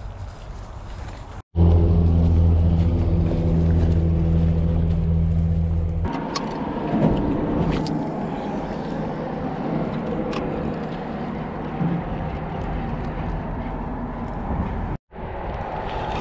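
Steady engine hum of a motor vehicle that stops abruptly about six seconds in. After it comes a rougher wash of outdoor noise with a few sharp clicks.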